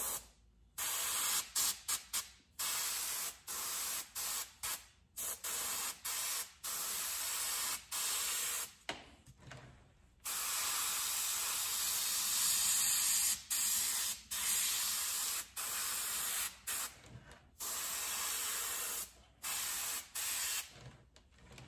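A cheap pen-style airbrush spraying thinned paint in many short on-off bursts, the air hiss starting and stopping each time the trigger is pressed and released, for light strokes of paint.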